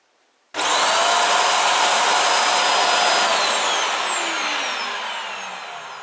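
Ecovacs Deebot N8+ auto-empty station's suction motor switching on abruptly about half a second in, running loud and steady as it sucks the dust out of the docked robot vacuum's bin. After about three seconds it winds down, its whine falling in pitch and fading.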